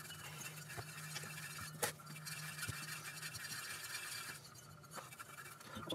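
Faint scraping and rubbing from gloved hands handling an air compressor's aluminium cylinder and piston, with one sharp click about two seconds in. A low steady hum stops a little past halfway.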